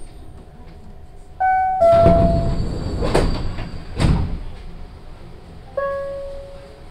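The Osaka Monorail car's door chime sounds two falling notes, then the sliding doors open with a loud rush of noise and two knocks. A single chime note rings near the end and fades. This is the train standing at its terminus with the doors opening.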